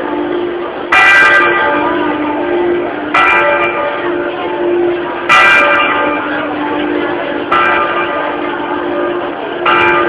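Church tower bells swung 'a slancio', the clapper striking about every two seconds in alternating stronger and weaker strokes, with the bell's hum ringing on between strikes.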